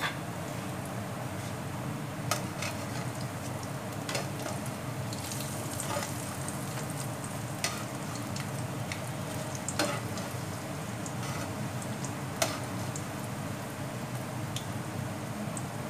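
Pakoras deep-frying in hot oil in a pan: a steady sizzle and bubbling, with a few sharp taps as a spatula turns them against the pan.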